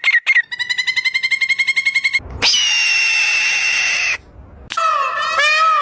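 A run of different animal calls cut one after another. First comes a fast pulsing trill, then a long, steady, high cry, and after a brief gap a series of calls that dip and rise in pitch.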